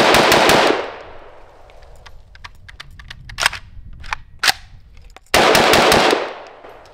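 AK-pattern rifle with a stamped receiver firing a rapid string of shots, then a few spaced single shots, then another rapid string near the end. Each burst of fire is followed by a short echo.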